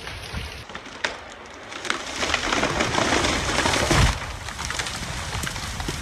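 A felled tree coming down: a rushing swell of branches and leaves for about two seconds, ending in a heavy thud about four seconds in.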